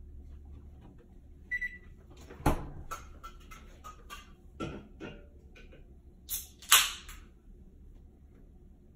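Kitchen clatter: a short electronic beep about a second and a half in, then a run of knocks and clinks, the loudest near the end, over a steady low hum.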